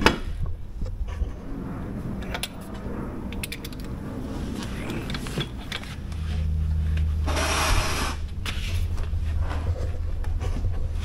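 Metal tools clinking and clicking as the rear wheel is refitted to a motorcycle on a lift. From about six seconds a steady low hum runs underneath, with a hiss lasting about a second near eight seconds.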